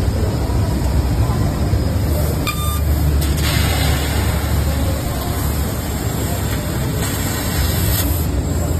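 Steady low rumble of machinery with a noisy hall background. From about three and a half seconds in, a hiss joins as a fiber laser cutting head cuts into a steel H-beam.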